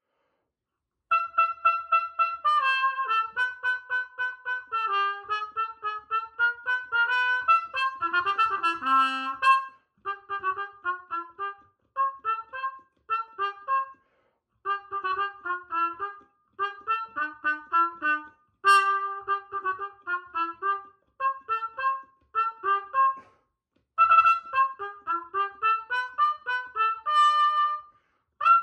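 Unaccompanied B-flat cornet with a mute in its bell, playing a quick march-style tune in rapid detached notes. The phrases are broken by short rests.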